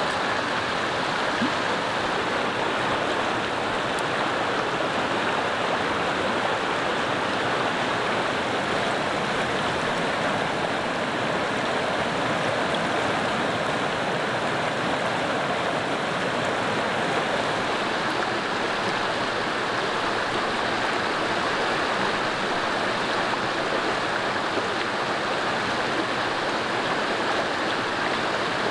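A fast-flowing river rushing over rocks: a steady, even rush of water.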